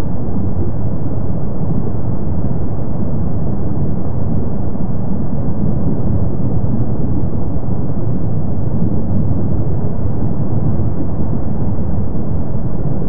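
Kīlauea's lava fountains erupting from a lava lake: a steady, low rumble with no separate bursts.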